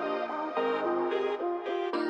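Background music: a light melody of short notes that change a few times a second.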